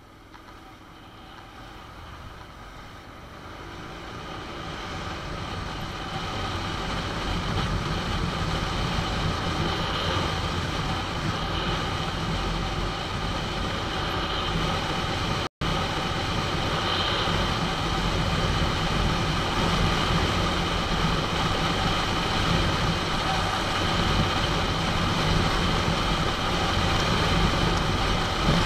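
Honda NC750 motorcycle on the move: its parallel-twin engine running under road and wind noise. The sound fades up over the first few seconds, then holds steady, with a split-second dropout about halfway through.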